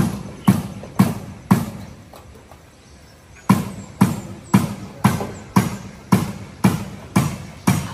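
Hammering: sharp, evenly spaced blows about two a second, stopping for about two seconds near the start and then going on steadily.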